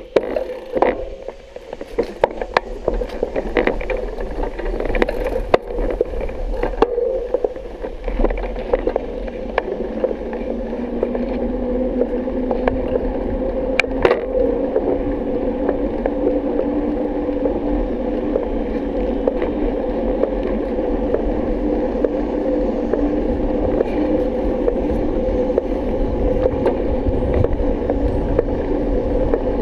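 Bicycle rolling along a paved road: a steady, muffled whir with a faint tone that climbs slowly in pitch. It is broken by a run of clicks and knocks during the first several seconds and a single sharp click about halfway through.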